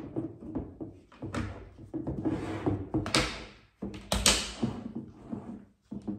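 Snap-lock lid being pressed down onto a glass food container and its latches clipped shut: a series of sharp clicks and thunks with handling noise between, the loudest about three and four seconds in.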